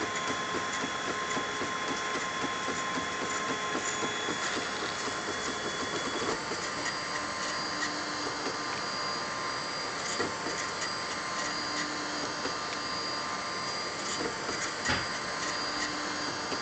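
Wooden-framed Ultimaker 3D printer printing: its stepper motors hum in steady tones that change as the print head switches moves, over a continuous mechanical whir. A single sharp click sounds near the end.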